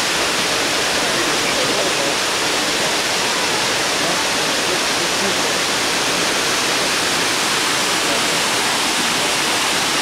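Waterfall pouring down a steep rock face and splashing over boulders: a steady, even rush of falling water.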